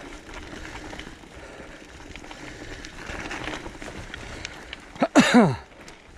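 Mountain bike rolling down a gravelly dirt forest trail: tyres crunching over stones and the bike rattling with small ticks. About five seconds in, the rider gives a loud, short grunt that falls steeply in pitch.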